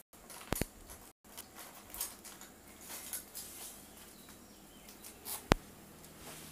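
Scattered clicks, knocks and rustling of someone rummaging for a pair of scissors, with a sharp click about half a second in and a louder one near the end.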